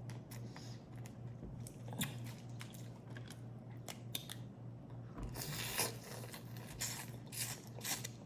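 Crawfish being peeled and eaten: shells cracking in scattered sharp clicks, with wet squishing and chewing.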